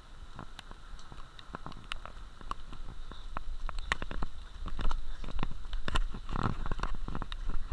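Raindrops tapping irregularly on an action camera's sealed waterproof housing, heard muffled through the case, with a duller knock about six and a half seconds in.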